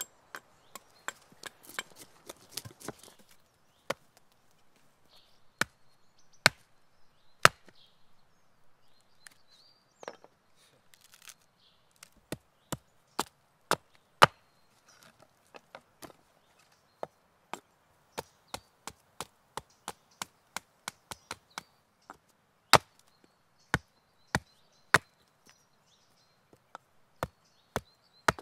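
Small axe chopping into a wooden billet on a stump chopping block: dozens of sharp chops at an uneven pace, some in quick runs, as the wood is split and trimmed.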